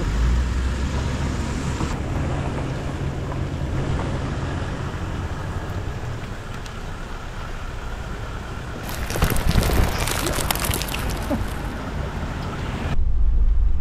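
Vehicle road and engine noise with wind buffeting, steady through most of the clip. About nine seconds in, a burst of crackling noise lasts a couple of seconds, and near the end the sound switches abruptly to a duller, louder low rumble.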